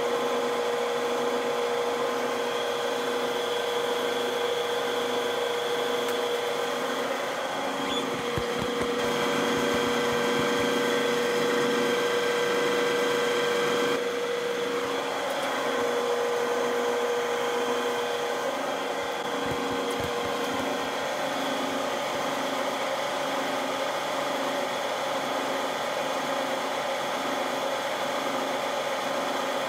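Milling machine running steadily, with a whine from its motor and gears and a regular low pulsing. The tone shifts a little about halfway through.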